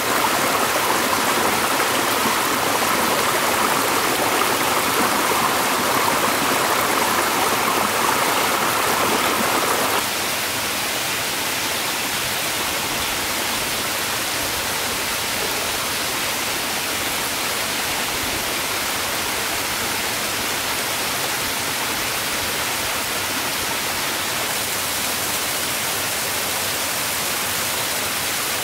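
Steady rush of running water, like a forest stream. About ten seconds in it cuts abruptly to a flatter, slightly quieter, even hiss.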